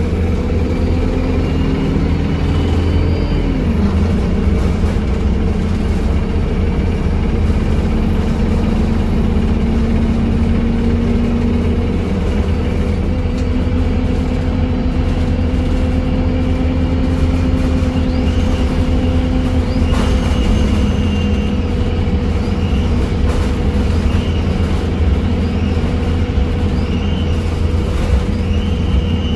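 Cabin sound of an Alexander Dennis Enviro 200 MMC single-decker bus under way: its Cummins ISBe 4.5-litre diesel and Voith DIWA automatic gearbox running at a steady speed, a steady whine over a deep road rumble, rising slowly and easing a little near the end.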